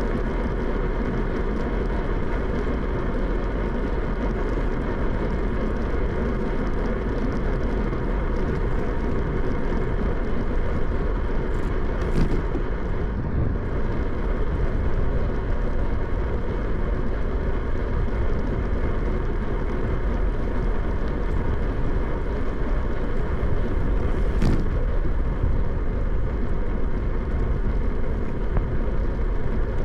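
Steady wind rush and rolling noise recorded from a moving bicycle, heaviest in the low end, with a couple of brief clicks partway through.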